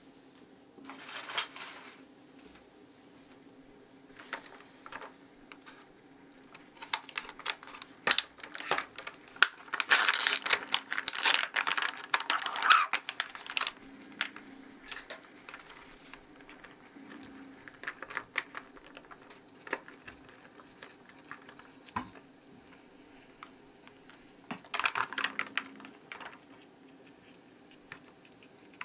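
Plastic bag of sliced bacon crinkling and rustling as it is handled, opened and emptied into a skillet. The sound comes in irregular bursts of crackling, loudest for a few seconds near the middle.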